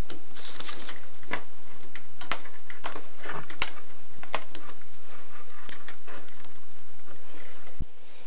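Plastic cable drag chain links being snapped shut over a laser engraver's wiring harness: an irregular run of clicks and light plastic rattling.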